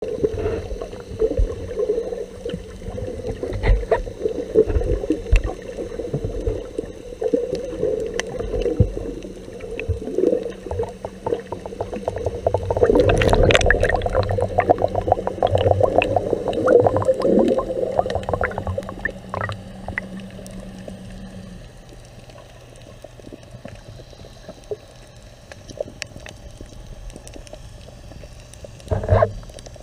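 Muffled underwater water noise with gurgling and bubbling. A denser burst of bubbling comes about halfway through, then the sound dies down, and there is a short knock near the end.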